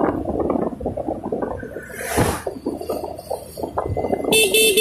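Motorcycle riding noise, engine and wind on the microphone, with a brief whoosh about two seconds in. Near the end comes a quick run of short horn beeps.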